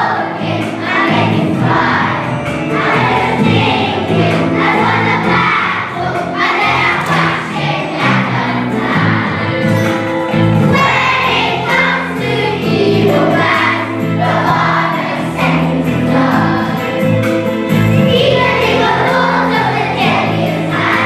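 A song: a group of voices singing over instrumental accompaniment with a steady, stepping bass line.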